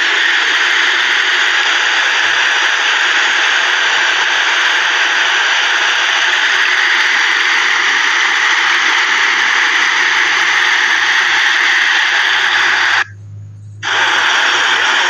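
Steady roar and hiss of fast-flowing muddy floodwater in a flash flood. The sound cuts out for nearly a second near the end, then comes back.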